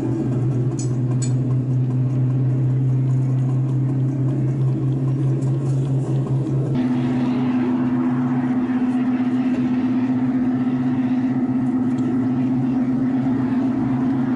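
HO-scale model train running along the track, its small electric motor giving a steady hum with the rattle of wheels on the rails, picked up by a camera riding on the train. The hum changes pitch about seven seconds in and a hiss grows over it.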